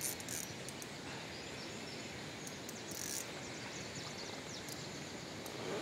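Steady outdoor background noise, with a few short, high rasping bursts near the start and again about two and a half seconds in.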